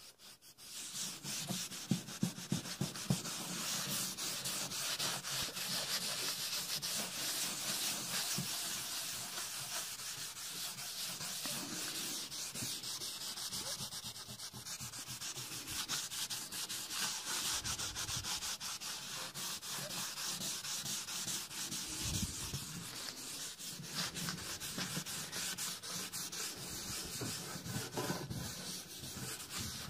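A cloth rubbing wood stain into the surface of a wooden box: a steady scratchy rub of rag on wood with quick back-and-forth strokes. A few knocks from handling come about two seconds in.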